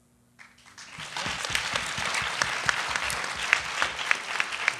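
Audience applause that starts about half a second in, swells within a second and carries on, with individual claps standing out from the crowd.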